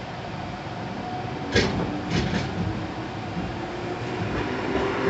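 Iyo Railway city tram running slowly on street track, heard from inside the car, with a steady low rumble. About one and a half seconds in its wheels give a sharp clack over the track, followed by two quicker clacks about half a second later.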